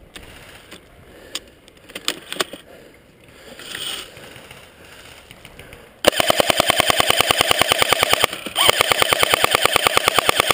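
Airsoft light machine gun firing full-auto: a fast, even rattle that starts suddenly about six seconds in, breaks off briefly a couple of seconds later and then resumes. Before it, only a few faint clicks and knocks.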